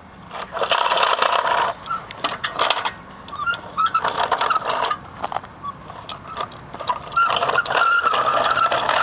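A large toy metal dump truck is pushed along concrete, its wheels rolling and grinding in several spurts with short pauses. The longest and loudest stretch of rolling comes near the end.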